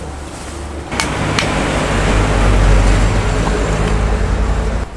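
An engine running close by: a low rumble that begins with a sharp click about a second in, swells to its loudest in the middle, and cuts off suddenly near the end.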